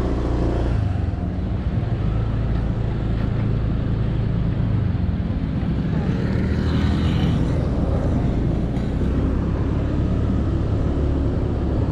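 Honda Click 125i scooter's single-cylinder engine running steadily as it pulls away and rides along.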